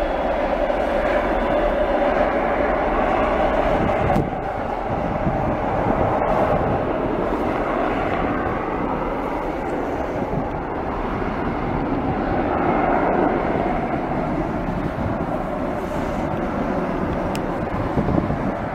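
Jet engine noise from a Delta MD-88's two rear-mounted Pratt & Whitney JT8D turbofans as the airliner moves along the runway: a loud, steady rushing roar, dipping briefly about four seconds in.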